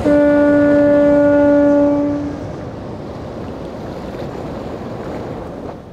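Boat horn sounding one long steady blast of about two seconds, then fading, over the rush of water and wind.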